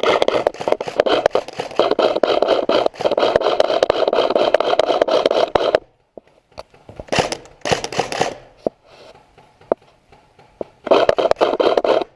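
Airsoft gun firing on full auto, a rapid train of shots: one long burst of about six seconds, then two short bursts, one about seven seconds in and one near the end.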